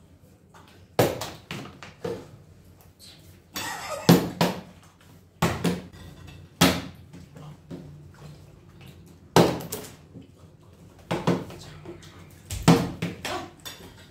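A partly filled plastic water bottle being flipped and landing on a wooden tabletop, again and again: about seven or eight sharp thuds, one to two seconds apart.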